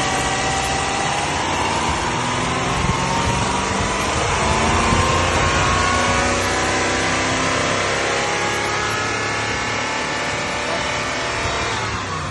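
Toyota 2UZ-FE 4.7-litre V8 engine running: its pitch rises slowly over the first few seconds as it is revved, then slowly falls back toward idle.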